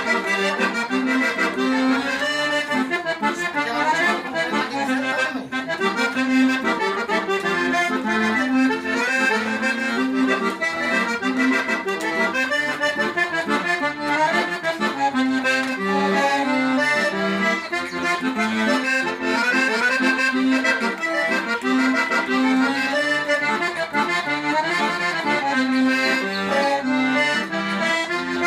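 Accordion playing a lively tune: fast runs of melody notes over a regularly repeating bass note.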